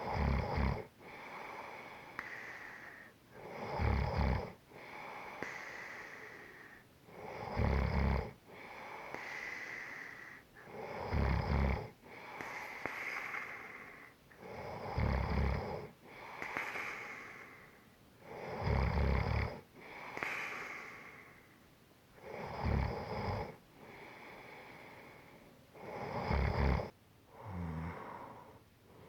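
A person snoring in a steady rhythm, about one breath every three and a half to four seconds: each breath is a short, deep snore followed by a longer breathy rush of air.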